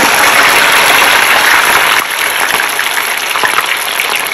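Yam pieces deep-frying in hot oil just after being dropped in: a dense, crackling sizzle of vigorous bubbling that eases slightly about two seconds in.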